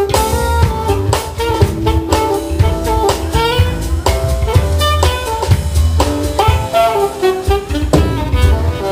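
Jazz band playing live: saxophone, drum kit, electric bass and electric guitar, with a melody line moving over steady bass and busy drum hits.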